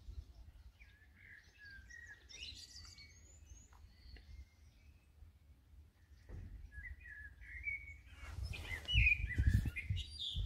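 Small birds chirping in short runs of quick calls. Near the end a low rumble and rustling noise rises and is the loudest part.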